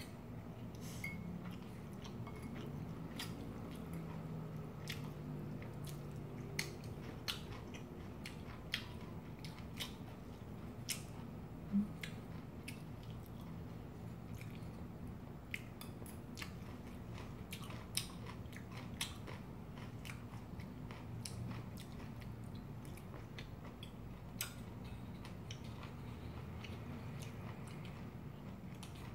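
Close-up eating sounds: chewing mouthfuls of whelk spaghetti, with scattered sharp clicks of a metal fork and spoon against ceramic plates.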